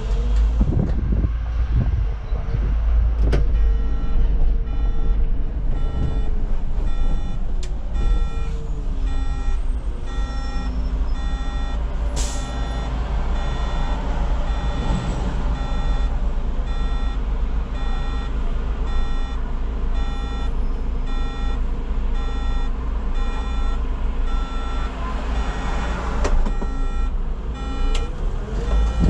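Solaris Urbino 18 articulated city bus running: a steady low engine rumble whose pitch drops and later climbs again near the end, under a long run of evenly repeating electronic beeps. A sharp click comes about three seconds in and a short hiss of air about twelve seconds in.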